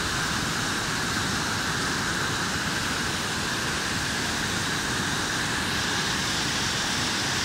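Waterfall and rapids: white water pouring over rock ledges in a steady, unbroken rush.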